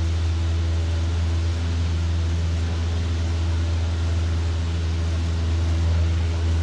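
Light aircraft's engine and propeller droning steadily in the cockpit at cruise power, a constant low hum with no change in pitch.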